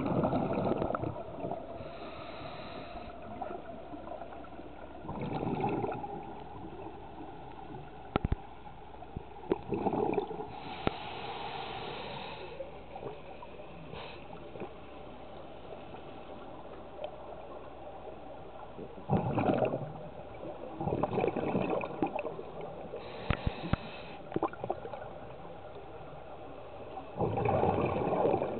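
Diver breathing through a scuba regulator underwater: exhaled bubbles gurgle out in bursts of about a second every few seconds, with the thinner hiss of inhalations between, and a few sharp clicks.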